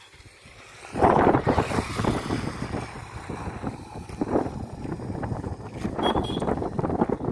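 Wind buffeting the microphone, starting suddenly about a second in and going on as a loud, uneven rumbling rush.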